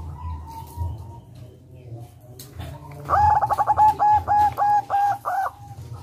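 Zebra dove (local perkutut) singing: a quick rolling run of about eight short coo notes, each dipping at its end, beginning about three seconds in.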